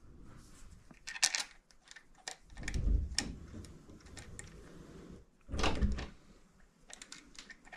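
Bicycle parts being worked by hand: scattered metal clicks and knocks, with two dull thumps about three and six seconds in.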